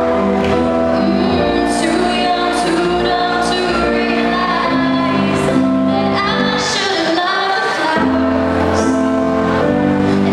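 A girl singing an English song solo into a microphone, amplified, over instrumental backing music with a steady bass line and regular cymbal hits.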